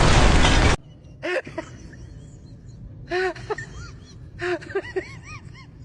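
A loud rushing noise cuts off abruptly under a second in. It is followed by short, high, rising-and-falling cries, some single and some in quick runs of three or four, like whimpering or yelping.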